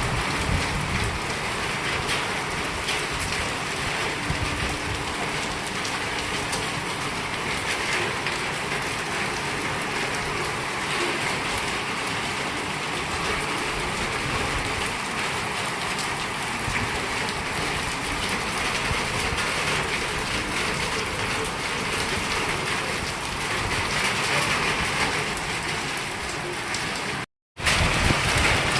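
Heavy rain pouring down, a steady hiss of rain on surfaces, broken by a moment of silence near the end.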